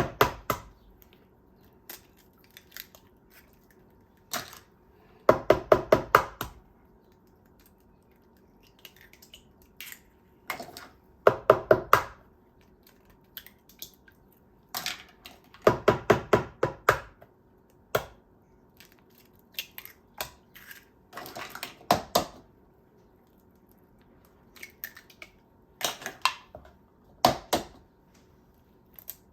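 A kitchen utensil clattering against a bowl in quick bursts of rapid tapping, each burst about a second long and repeated every few seconds.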